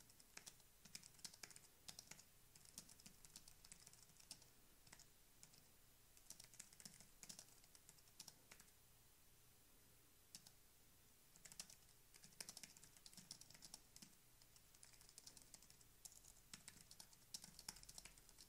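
Faint typing on a computer keyboard: quick runs of key clicks, with a short lull about halfway through.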